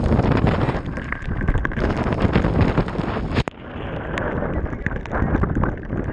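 Strong wind buffeting the microphone, a loud, uneven rumble of gusts, with a brief dropout and an abrupt change in the sound about three and a half seconds in.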